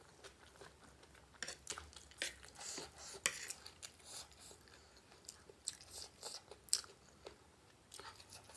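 Close-miked chewing of spicy gilo chatpate: irregular soft crunches and wet mouth sounds, with light clicks of a spoon on the plate.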